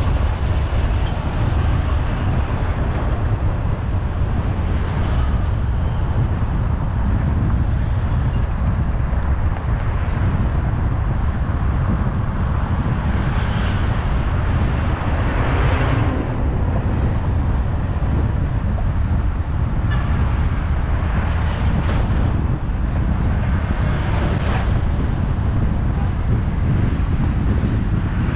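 Steady low rumble of road and wind noise on a camera mounted to a moving vehicle in city traffic, with a few louder swells in the second half.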